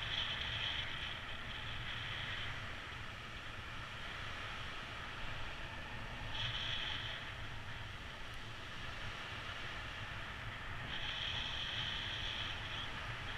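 Airflow buffeting the camera microphone in paraglider flight: a steady low rumble with a brighter hiss that swells three times, about a second in, midway and near the end.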